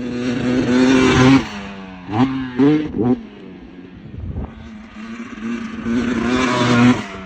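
An engine revving: a steady running note that swells loud twice, near the start and again near the end, with three quick rising throttle blips a couple of seconds in.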